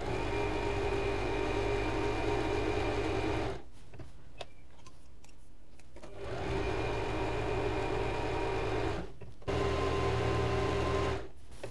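Usha Janome Fashion Maker electric sewing machine running as it sews a decorative embroidery stitch. It goes in three runs with short stops between them.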